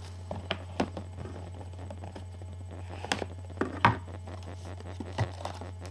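Baseball trading cards and their pack being handled: scattered light clicks and rustles, with a louder knock about four seconds in, over a steady low hum.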